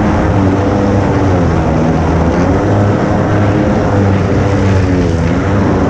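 Kawasaki JS300 stand-up jet ski's two-stroke engine running steadily under way, its pitch wavering slightly up and down.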